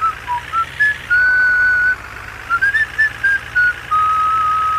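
A whistled tune: one clear tone moving through short notes, with a long held note about a second in and another near the end.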